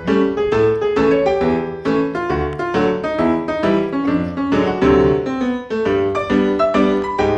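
Background piano music with a steady, even rhythm of repeated notes over a bass line.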